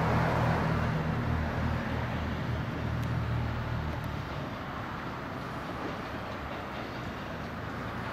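JR Central 311 series electric train pulling away from the station, its low running hum fading as it moves off into the distance.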